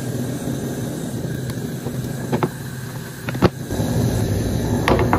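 A steady low roar with a hum, with a few light sharp clicks of a metal ladle against a crêpe pan as batter is poured onto it.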